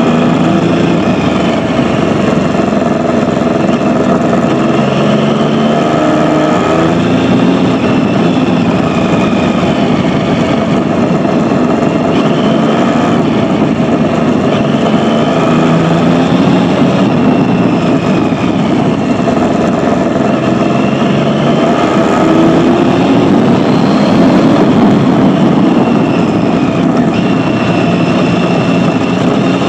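Motorcycle engine running steadily as the bike rides along, its pitch repeatedly rising and falling with the throttle, over a constant rush of road and wind noise.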